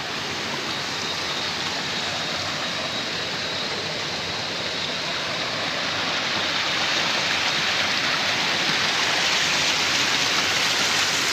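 Shallow rocky mountain river flowing, a steady rush of water that grows louder about halfway through.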